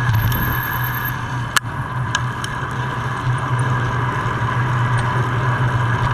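Steady rolling and road noise from a bicycle in motion, with a single sharp click about one and a half seconds in.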